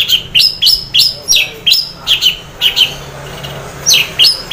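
Orange-headed thrush singing a rapid string of short, sharp whistled notes, each stepping down in pitch, about three a second, with a brief pause near the end. The bird is in half breeding condition ('setengah birahi'), singing in the 'teler' style.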